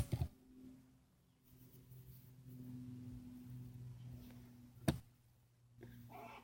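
Sharp knocks as potatoes are handled and set on a weighing scale: one right at the start with a second just after, and another about five seconds in, over a low steady hum.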